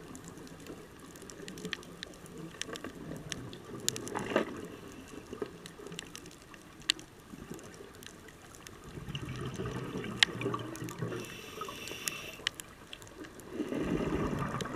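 Underwater sound heard through a camera's waterproof housing: a muffled wash of water with scattered sharp clicks. The wash swells louder around nine seconds in and again near the end.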